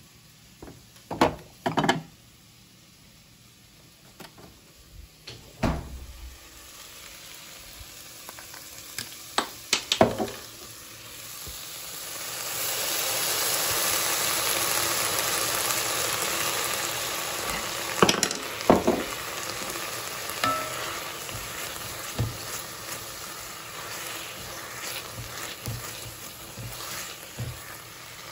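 Sliced onions frying in an enamelled cast-iron pot. Their sizzle builds from about six seconds in and is loudest around the middle, while a wooden spoon stirs them. In the first ten seconds a handful of sharp clinks and knocks come from bottles and jars being handled in the fridge door.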